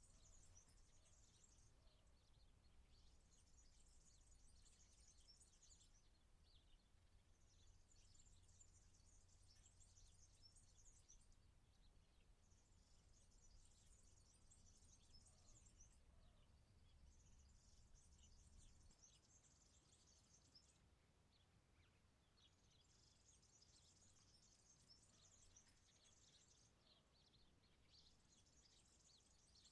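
Small birds chirping in a dense, faint chorus that comes in bouts of a few seconds separated by short pauses. A faint low rumble underneath stops about two-thirds of the way through.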